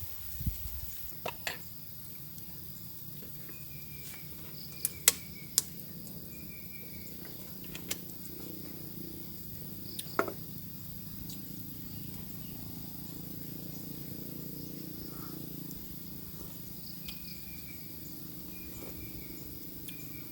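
Forest ambience: insects droning steadily, with short falling chirps repeated in runs and a few sharp clicks or cracks, the loudest about five seconds and ten seconds in.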